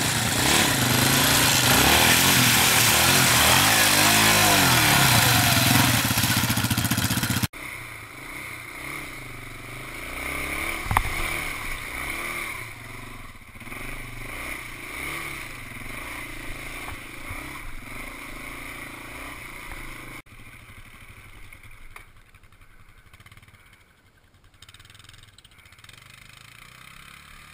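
Yamaha ATV's single-cylinder four-stroke engine revving up and down under throttle on wet, muddy ground. The sound drops abruptly twice, about a quarter of the way in and again about three-quarters in, to a quieter engine note, with a single sharp knock a little before the halfway point.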